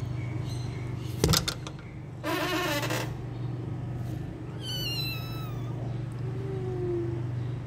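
A kitten's high, thin mew, falling in pitch, about five seconds in, after a sharp knock and a short, rough sound near the start, over a steady low hum.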